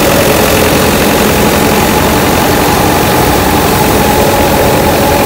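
A tractor engine and the thresher it drives, running steadily under load: a loud, continuous mechanical drone with a steady hum and the rush of the thresher working.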